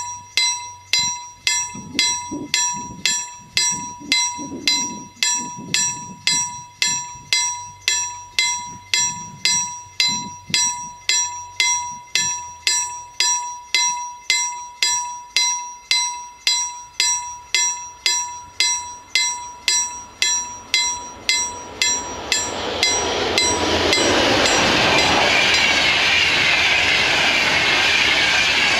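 A level-crossing warning bell, a ZWUS KLD-4013 mechanical bell, strikes steadily about twice a second with a ringing tone. From about two-thirds of the way in, an EU44 electric locomotive hauling InterCity coaches passes over the crossing, and its loud, steady rushing of wheels on rail buries the bell.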